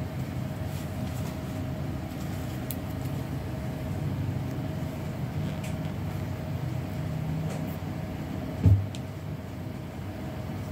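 Steady low rumble of background noise with a faint constant hum, broken by a single low thump a little before the end.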